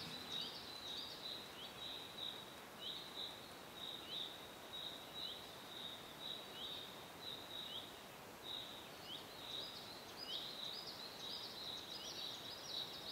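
Faint bird chirps: a string of short falling notes, a few a second and busier near the end, over a thin steady high tone.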